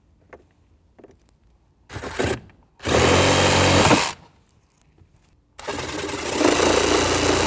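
Cordless reciprocating saw cutting through a plastic dash support bar. It runs in two goes: a short cut of about a second, then, after a pause of about a second and a half, a longer cut that keeps going. A brief blip of the saw comes just before the first cut.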